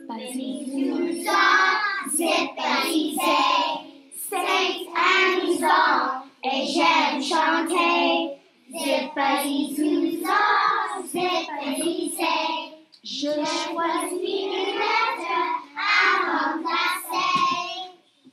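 Children's voices singing in French, a song sung in short phrases with brief pauses between them.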